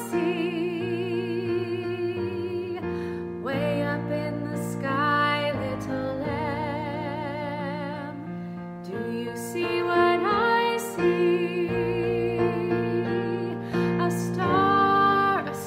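A woman's voice singing a slow, tender song with vibrato on long held notes, accompanied by piano.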